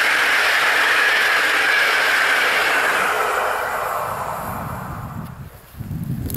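Passenger train coaches rolling past on the rails: a steady rushing of wheels on track that fades away over about five seconds as the end of the train recedes. Near the end, wind buffets the microphone in low gusts.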